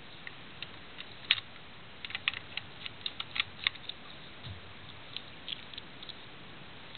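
Small metal parts of a mailbox-door combination lock clicking and tapping as the lock is taken apart by hand and its cover lifted off the wheel pack. The clicks are sharp and separate, the loudest about a second in, then a quick run of them between two and four seconds, thinning out after that.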